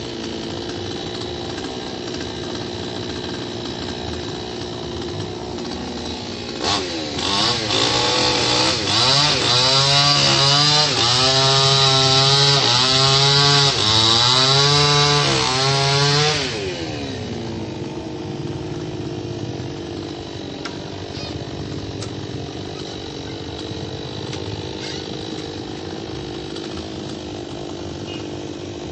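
Chainsaw engine idling, then revved hard in a run of surges whose pitch rises and falls about once a second for roughly ten seconds, then dropping back to idle.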